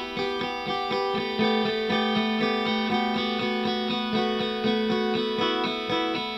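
Shoegaze guitar playing alone: a steady, even run of picked notes, several a second, over sustained ringing tones, with no drums or vocals.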